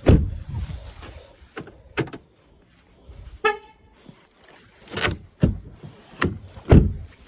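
Car door clunks and latch clicks from a Volkswagen ID.4's door, about half a dozen knocks, with one short horn toot about three and a half seconds in.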